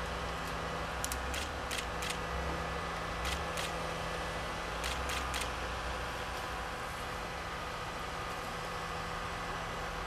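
Tigercat forwarder's diesel engine and hydraulics running steadily with a whine, the low rumble swelling a few times as the crane swings its grapple full of logs. Several short sharp knocks, singly and in quick runs, in the first half or so.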